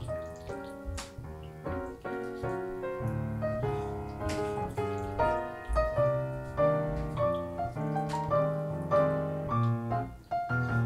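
Background piano music: a melody of changing notes over chords.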